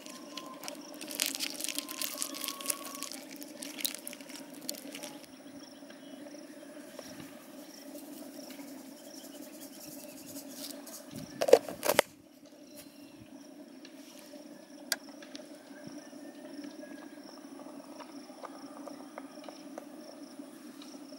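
Steady outdoor insect chirring, with a dry rustling patter of salt being poured into a plastic bowl of spice powder during the first few seconds. Two sharp knocks about halfway through and a single click a few seconds later.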